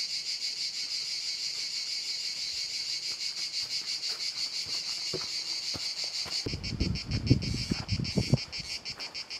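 Steady chorus of insects, a high, rapidly pulsing chirring. About two-thirds of the way through, the chorus changes in tone and a few low, irregular thumps come through for about two seconds.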